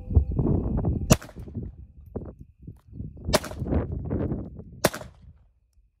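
Three shots from a Glock 44 .22 Long Rifle pistol, the first about a second in, the next two roughly two and one and a half seconds apart, each a sharp crack. A low rumbling noise runs underneath until shortly before the end.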